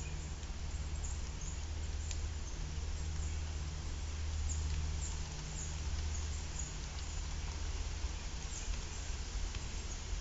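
Faint, scattered crisp clicks of a grey squirrel gnawing a pumpkin stem, over a steady low hum.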